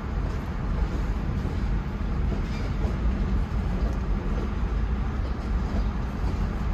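Freight train cars rolling steadily past a grade crossing: a boxcar and then a centerbeam flatcar, with a steady, low noise of wheels on the rails, heard from inside a car.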